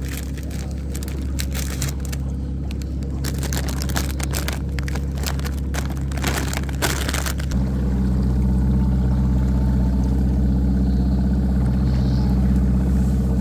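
Evinrude 115 outboard motor running steadily at trolling speed, its hum getting louder about halfway through. Before that, crackly rustling of a plastic candy bag being handled.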